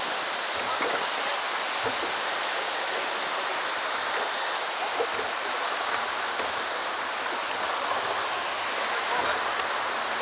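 Steady rushing of water as a boat runs through the whitewater of breaking surf, an even hiss with no clear engine note.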